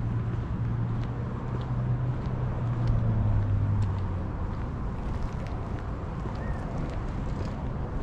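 A motor vehicle passing: its low engine hum dips slightly in pitch and fades out about four seconds in, over steady outdoor noise.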